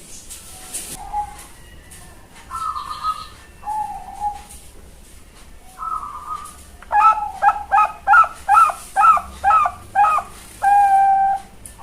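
Young Bangkok-strain zebra dove (perkutut) cooing. A few short, separate coos come first. About seven seconds in, a quick run of about nine rolling notes follows, ending on one long held coo.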